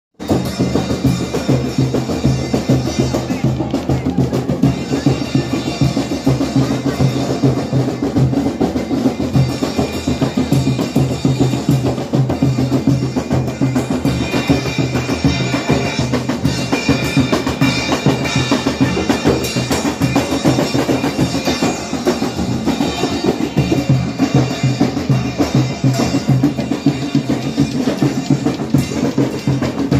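A group of hand drums, frame and barrel drums, beaten together in a steady, unbroken rhythm.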